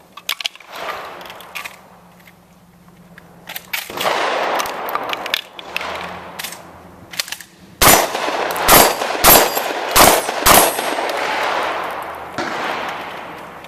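Shotgun fired five times in quick succession, about two shots a second, at steel plate targets that clang when hit. Smaller sharp knocks and clanks come before the string of shots.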